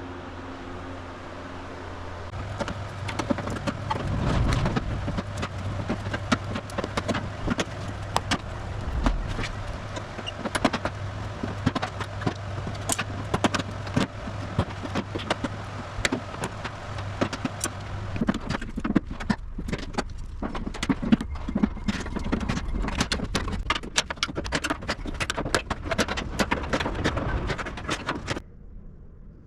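Metalwork on a car body: dense, irregular metallic knocking and clattering as old steel bonnet-seal strips are cut and knocked off the panels, over a steady low hum. The knocking starts about two seconds in and stops suddenly near the end.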